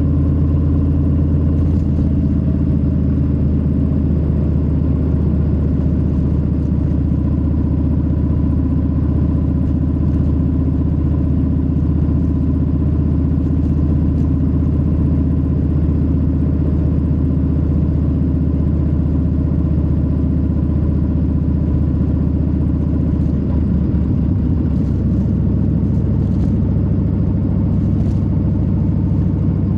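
Harley-Davidson Low Rider S with its Milwaukee-Eight 117 V-twin running steadily at cruising speed. The engine's note shifts slightly about three-quarters of the way through.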